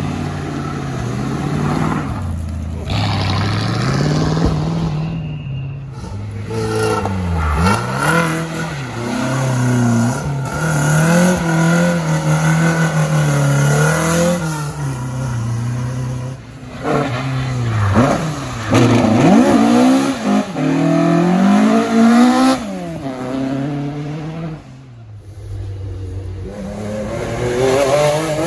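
Rally car engines revving hard as cars pass one after another on gravel, among them a Ford Falcon and a Peugeot pickup. The engine note climbs and drops repeatedly with throttle and gear changes, and goes briefly quieter about three-quarters of the way through.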